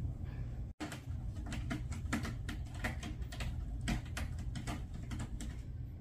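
Kittens' claws and paws tapping and scrabbling on a hard surface: light, irregular clicks, several a second.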